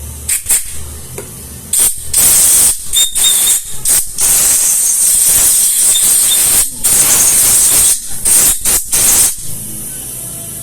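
Compressed-air blow gun hissing in repeated blasts, several short ones and one longer blast of a couple of seconds, blowing dirt out of a horn compression driver; the blasts stop about nine seconds in.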